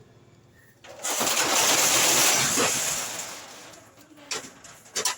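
A loud hissing spray, starting about a second in and fading away after about two and a half seconds, then two sharp clicks near the end.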